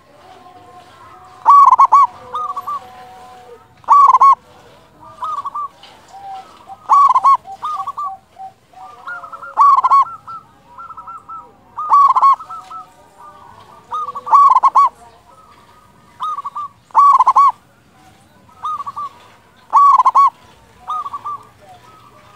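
Zebra dove (perkutut) cooing vigorously, repeating a loud phrase of quick rolling coos about every two and a half seconds, eight times, with softer coos in between.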